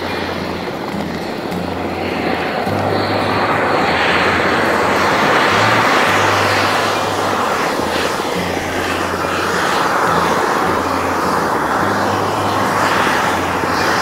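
Oblique Geyser's hot pool boiling continuously: a steady roar of churning, bubbling water and venting steam.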